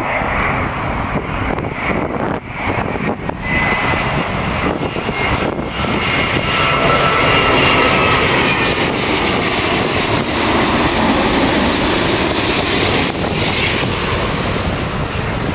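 Airbus A350-900 jet airliner on final approach with gear down, its Rolls-Royce Trent XWB engines making a loud, steady jet rumble with a faint whine. The noise swells to its loudest about halfway through as the aircraft passes low overhead, then eases slightly.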